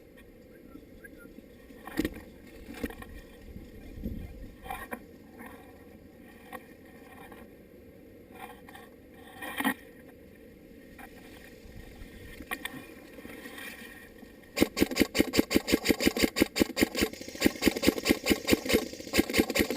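Scattered clicks and knocks, then about three-quarters of the way in a loud, fast, even rattle: an airsoft electric gun (AEG) firing a long full-auto stream, its gearbox cycling rapidly.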